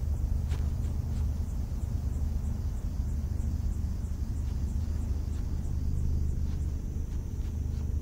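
A low, steady rumbling drone from an ambient soundtrack, with a faint high hiss and scattered soft ticks over it.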